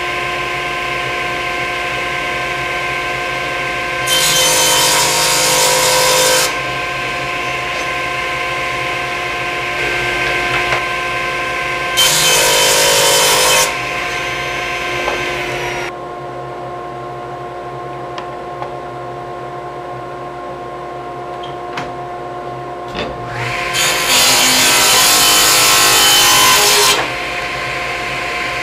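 Table saw running with a steady motor hum, making three rip cuts through wood: the cutting noise swells about four seconds in, again about twelve seconds in, and for a longer stretch about twenty-four seconds in.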